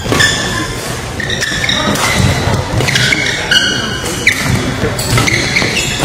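Badminton rally: rackets striking the shuttlecock with sharp hits, and players' court shoes squeaking in short high chirps on the court floor.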